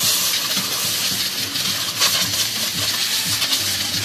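A steel brake caliper piston being scrubbed by hand with a small brush: a steady, harsh scratching of bristles on metal as corrosion spots are cleaned off.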